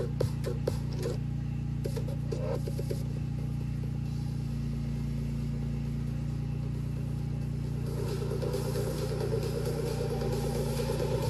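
Electronic dance music in a stripped-down breakdown: a steady low bass drone, with drum hits dropping out in the first seconds and a buzzing synth growing in about eight seconds in.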